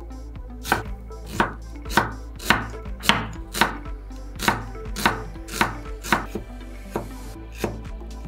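Chef's knife slicing an onion on a wooden cutting board: a steady run of cuts, each ending in a knock of the blade on the board, about two a second, thinning out near the end.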